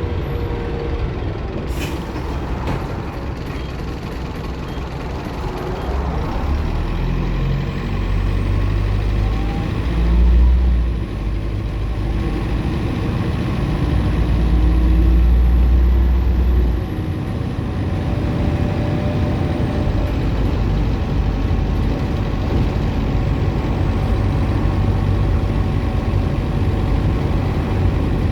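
Optare Solo M950 bus's diesel engine running, pulling harder twice, briefly about ten seconds in and again for a few seconds in the middle. A thin, high turbo whine rises and falls over the engine. One short sharp click comes about two seconds in.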